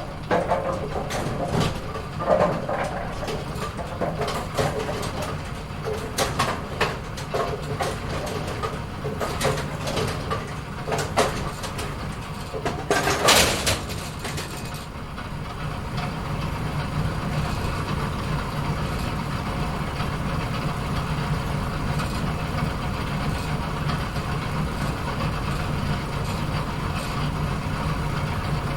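Bowling alley pinsetter setting pins: a run of clattering knocks and clunks, loudest about thirteen seconds in, then from about fifteen seconds a steady machine hum.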